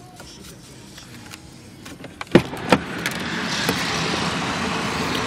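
Two sharp clunks of the car's door latch as the door is opened, then a steady rush of outside noise coming in.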